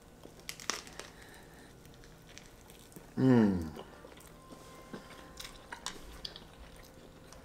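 Faint chewing and biting of a fresh rice-paper spring roll, soft scattered mouth clicks. About three seconds in, a short hummed voice sound falls in pitch, an appreciative "mmm".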